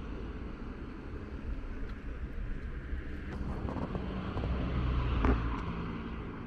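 Wind on the microphone over low street traffic. A motor vehicle's engine passes close, growing louder to a peak about five seconds in, then fading.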